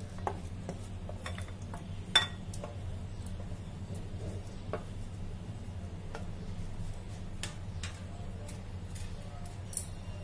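A spatula scraping cooked vegetables out of a pan into a glass bowl of beaten eggs: scattered clinks and knocks of the spatula and pan against the bowl, one louder about two seconds in, over a steady low hum.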